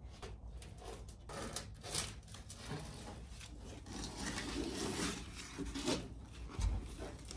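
Old rubber door weatherstripping on a 1965 AMC Rambler body being pulled off the door opening and handled, giving irregular rubbing and scraping noises with small clicks and knocks. A dull thump comes about six and a half seconds in.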